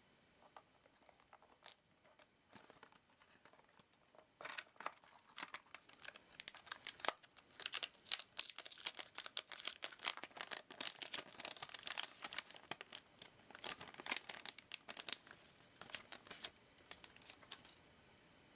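Dense, irregular crinkling and crackling of plastic being handled, starting about four seconds in and stopping shortly before the end.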